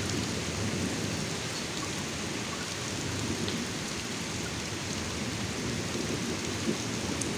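Heavy rain pouring down steadily, with continuous thunder beneath it that drones on without separate claps, like a big plane flying low overhead.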